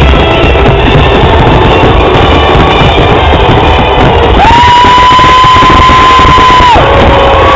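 Loud rock music from the fireworks show's soundtrack over the dense, continuous bangs of a fireworks grand finale. A long high note is held from about halfway through until near the end.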